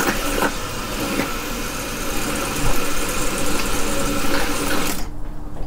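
Newly fitted Seaflo automatic bilge pump running as it empties the engine-room bilge, a steady even noise; about five seconds in its float switch shuts it off and the noise stops suddenly.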